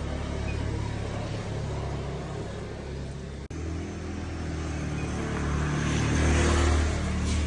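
A motor engine running steadily with a low hum, growing louder about six seconds in. There is a brief dropout about three and a half seconds in.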